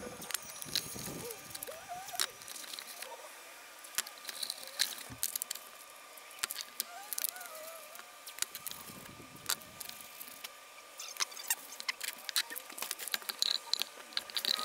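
Irregular sharp clicks and crackles of blue painter's tape being pulled off its roll and torn, with light knocks of forms (a PVC ring and a metal can) being handled and set down on a board.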